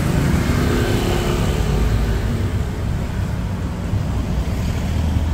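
A baht bus (songthaew) engine and road noise as heard from its open rear bench, a steady low rumble in traffic. An engine hum holds for the first couple of seconds and then fades into the rumble.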